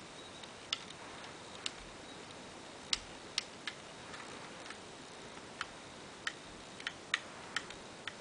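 LEGO Glock 19 model's plastic parts clicking as its trigger and slide lock are worked by hand: about a dozen short, sharp clicks at irregular intervals over a steady hiss.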